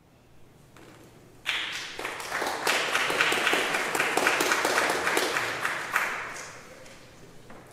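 Audience applauding, starting suddenly about a second and a half in, at its fullest midway and dying away near the end.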